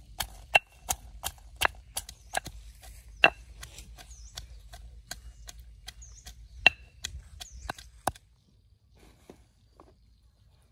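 Stone pestle pounding garlic cloves and red chilies in a heavy stone mortar, crushing them into a chili paste, with sharp, regular knocks about three a second. The pounding stops about eight seconds in.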